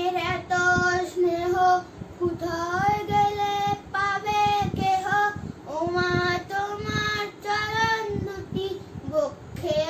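A boy singing solo and unaccompanied, holding long steady notes in phrases with short breaths between them.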